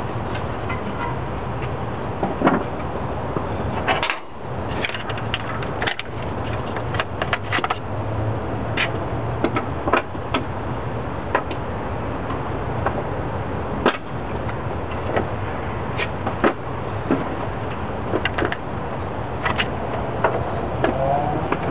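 Metal hand tools clinking and knocking as they are gathered up and put away, in scattered sharp clicks over a steady low background rumble.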